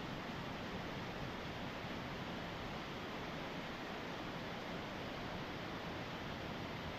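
Steady rushing noise with no pitch or rhythm, of the kind made by running water or wind.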